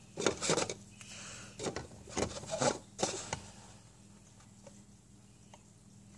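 Knife point being twisted into a hard plastic cup lid to bore a hole: about seven short scraping, crackling strokes in the first three seconds, then only faint ticks, over a low steady hum.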